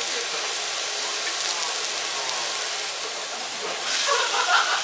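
Thinly sliced lamb sizzling on a hot cast-iron Genghis Khan grill pan: a steady hiss, a little louder near the end as the meat is turned with tongs.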